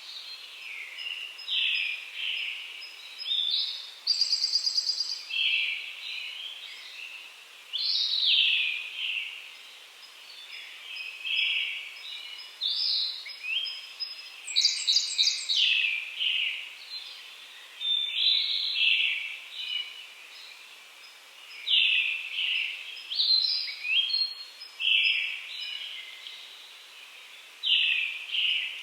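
Early-morning chorus of songbirds, among them brown-headed thrushes and Japanese robins, with short phrases overlapping every second or two. A rapid rattling trill stands out twice, about four seconds in and again about halfway through.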